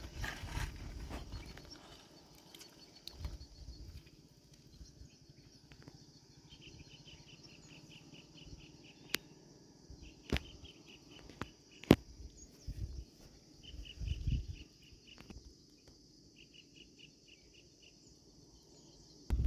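Outdoor riverside ambience: an insect trilling in three runs of rapid, even pulses. A few sharp clicks come through, the loudest about twelve seconds in, along with several low rumbles.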